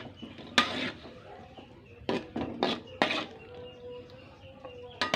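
A utensil knocking and scraping against a cooking pot while a thick mixture is stirred, in a handful of sharp clinks: one about half a second in, a cluster of three or four around two to three seconds, and one near the end.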